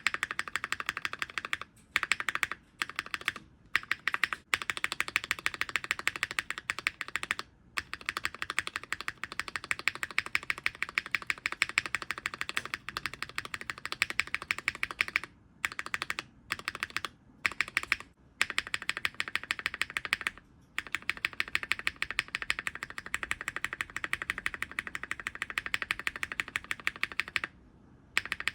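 A mechanical keyboard's spacebar is pressed over and over in fast clattering runs, with short pauses between runs. It is fitted first with a filmed Cherry Nixie switch, then an unfilmed Cherry Nixie from about four and a half seconds in, then a filmed vintage Cherry MX Black from about eighteen seconds in.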